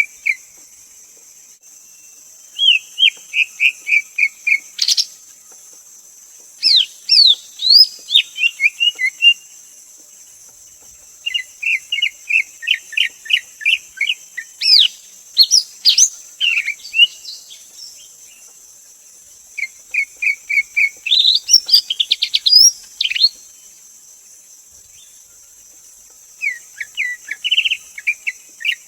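Greater green leafbird singing: phrases of several seconds of rapid repeated whistled notes, with a few sharp rising and falling notes mixed in, about five phrases separated by short pauses. A steady high hiss runs underneath.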